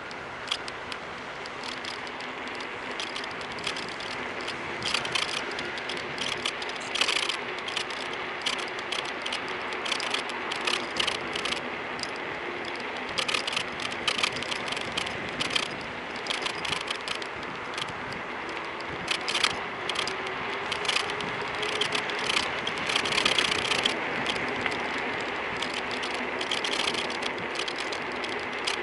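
Phone holder on a Kugoo V1 Plus electric scooter squeaking and clicking irregularly as the scooter rides over the road surface, over steady riding noise with a faint motor hum.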